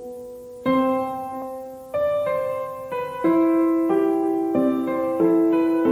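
Background piano music: slow chords struck about every half second to a second, each left to ring and fade.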